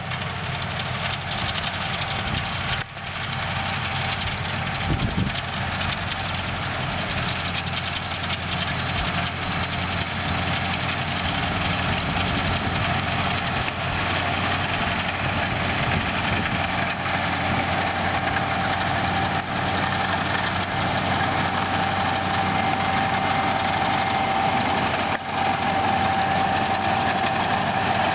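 Case IH 5150 Plus tractor's six-cylinder diesel engine running steadily under load while pulling a seed drill. It grows a little louder over the second half, with a steady whine coming up.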